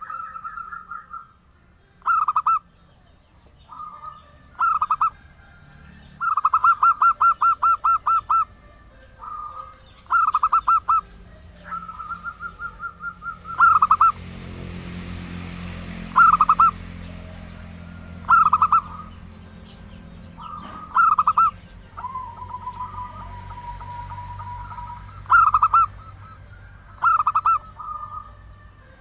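Zebra dove (perkutut) cooing, a female's call used to lure males: short rolling coos repeated every one to two seconds. About six seconds in comes a longer rapid string of about a dozen notes, and a little after twenty seconds a steady held coo. A faint high steady whine runs underneath, and a low rumble swells for a few seconds near the middle.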